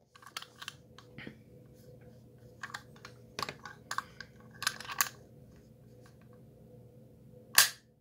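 Dial of a combination padlock being turned by hand: a run of small irregular clicks and ticks, with one sharper, louder click near the end.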